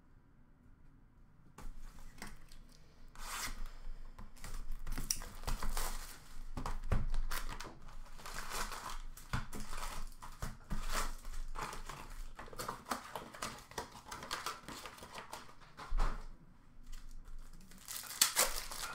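Cardboard hobby box of Upper Deck hockey cards being opened and its foil-wrapped packs handled and torn open: irregular crinkling and rustling with sharp tearing sounds, starting about a second and a half in.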